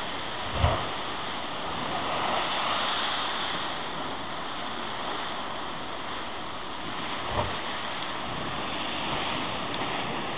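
Heavy surf and wind on a rocky shore, a steady rush of water. Twice, about half a second in and again about seven seconds in, a sudden low boom, the first the louder: waves bursting in the narrow cove, the gunshot-like thunder that gives Boka Pistol its name.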